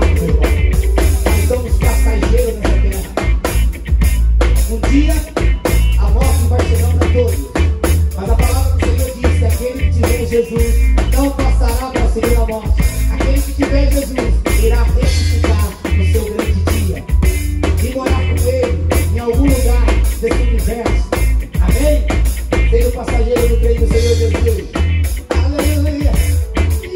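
Live band music from the stage: a Waldman Turbo 2.0 electric bass holds a loud, steady low line under a drum kit and the rest of the band.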